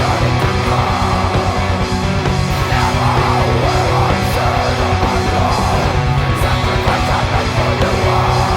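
Heavy metal band playing: distorted guitars, bass guitar and drums, loud and steady, over a rapid, even low drum pulse.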